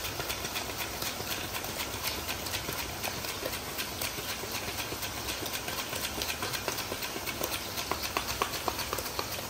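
Raw plantain slices frying in hot coconut oil in an iron kadai: a steady sizzle full of small crackles and pops. Over it comes the repeated scrape of a hand slicer as the plantain is pushed across its blade, dropping fresh slices into the oil.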